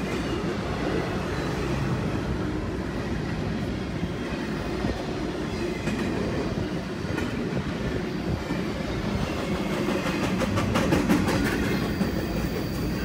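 Double-stack intermodal freight train rolling past: a steady rumble of steel wheels on rail, with a quick run of clicks over the rail joints a couple of seconds before the end. Near the end a faint high wheel squeal begins.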